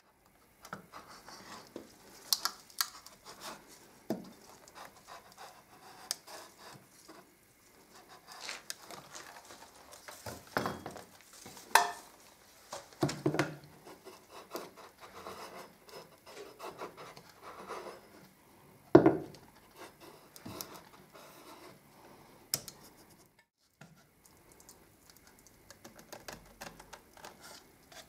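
Veneer hammer and clothes iron worked over hide-glued veneer on a wooden panel, heating and pressing it to loosen the glue. Irregular scraping and rubbing strokes, with sharp knocks of the tools on the workbench and a few louder scrapes around the middle.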